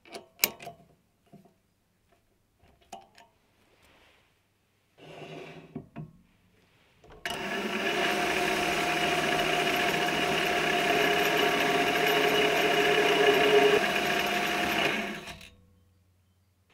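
Mini lathe running with a steady whine of motor and gears while facing the end of a round bar held in the chuck. It starts abruptly about seven seconds in and winds down about eight seconds later, after a few light clicks earlier on.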